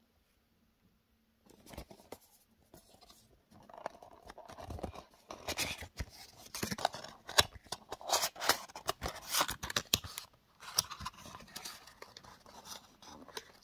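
Paperboard perfume box being opened by hand: cardboard flaps scraping and rustling with sharp clicks as the bottle is worked out of its cardboard insert. It starts about a second and a half in and is busiest in the middle.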